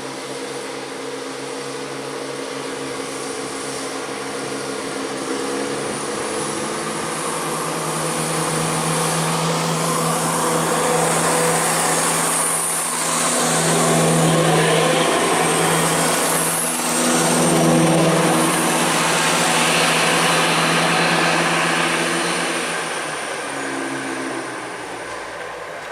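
Diesel engines of a ScotRail Class 170 Turbostar diesel multiple unit pulling away from the station and accelerating. The engine note steps up about five seconds in and grows louder as the train passes. It dips briefly twice around the middle, then fades as the train draws away.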